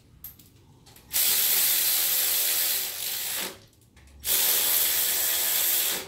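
Cordless electric ratchet running in two spells of about two seconds each, with a short pause between, driving a bolt in on an engine's intake manifold.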